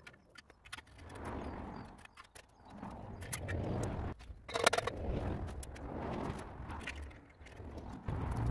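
Steel frame pieces of a cement mixer stand being handled and fitted together on gravel: irregular metal clinks, knocks and scrapes, with a sharper knock about halfway through.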